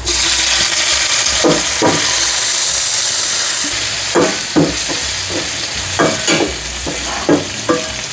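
Garlic and fermented soybean paste frying in hot oil with a loud, steady sizzle, while a spatula stirs and clanks against the pan a dozen or so times.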